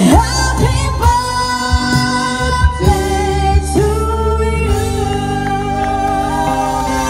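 Singing with instrumental accompaniment: a slow melody with long held notes.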